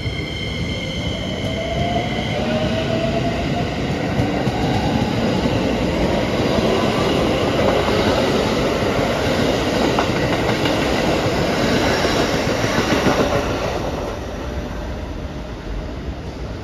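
Keikyu 2100 series electric train pulling away from a station: the whine of its Toyo IGBT-VVVF inverter rises in pitch over the first few seconds, then the wheels running on the rails grow louder as the cars pass and fade over the last few seconds as the train leaves.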